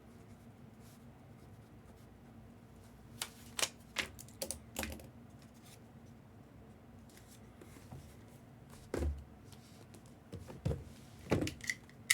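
Sharp clicks and taps of packaging being handled as mystery baseball boxes are opened: a quick cluster of clicks a few seconds in, a duller thump at about nine seconds, then more clicks and rustles near the end.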